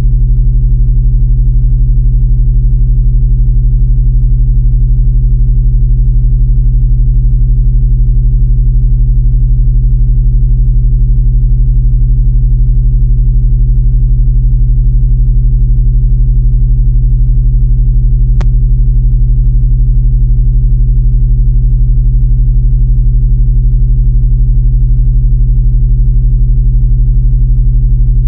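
Synthesized sci-fi drone: a loud, steady low hum made of several layered low tones that never change in pitch. One brief click cuts through about two-thirds of the way in.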